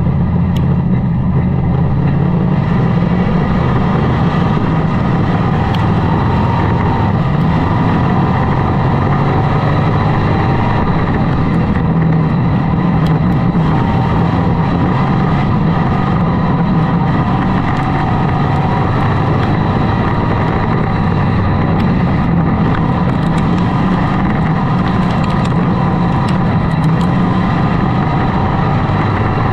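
Hobby stock dirt-track race car's engine running hard under racing load, heard from inside the cockpit, loud and steady with little change in pitch.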